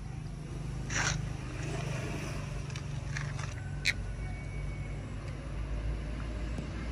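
A motor engine running steadily in the background, a low hum that grows louder near the end. About a second in there is a short tearing rustle of orange peel being pulled apart, and a sharp click near the middle.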